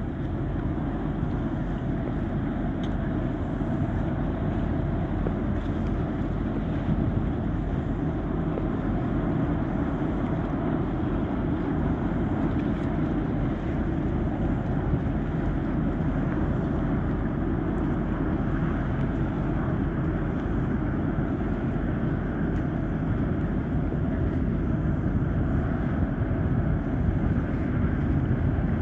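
A ferry's engines running with a steady, even low rumble.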